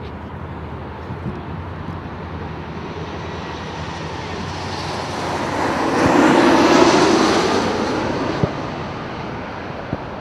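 A vehicle passing by: a rushing engine noise that builds over several seconds, is loudest about six to seven seconds in, then fades away.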